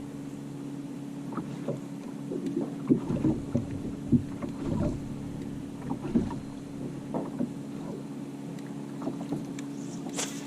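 Electric trolling motor on a bass boat running with a steady hum, with scattered knocks and clatter on the boat between about one and seven seconds in, and one sharp click near the end.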